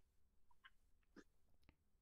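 Near silence: faint room tone with a few soft, brief ticks.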